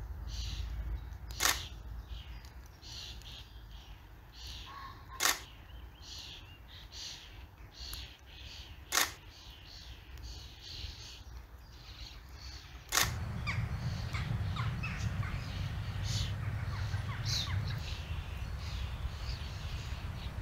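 Camera shutter clicks, four single clicks a few seconds apart, over faint bird calls. After the last click a steady low wind rumble with faint bird chirps follows.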